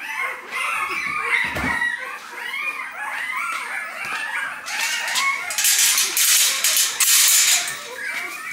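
A litter of eight-day-old Rottweiler puppies crying in many short, high squeals and whines, hungry and waiting to be fed. A dull thump comes about a second and a half in, and a loud rustling, scraping noise runs through the middle of the stretch.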